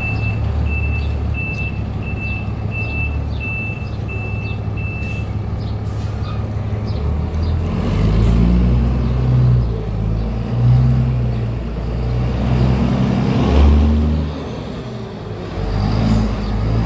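Volvo VM truck's diesel engine running, with a short high electronic beep repeating about twice a second for the first five seconds; from about seven seconds in the engine note rises and falls several times. The engine is running normally after its engine control module was replaced.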